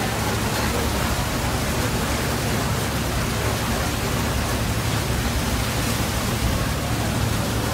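Heavy rain as a steady rushing hiss, with a steady low hum underneath.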